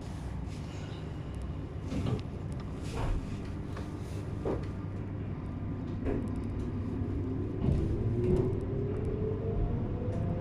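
JR East 719 series electric train running with a low rumble and occasional knocks, then from about six seconds in a steadily rising motor whine as it gathers speed just after leaving a station. This car is one known for its unusual running noise.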